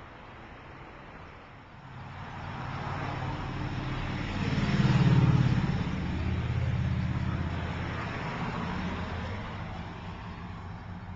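A motor vehicle driving past on the street. Its low engine hum and tyre noise build up, peak about five seconds in, then slowly fade away.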